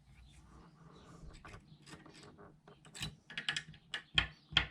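Small clicks and taps from pressing a replacement rubber seat and spring down into a Delta faucet's valve hole, working evenly around it. The clicks are scattered at first, grow thicker about three seconds in, and the two sharpest come near the end.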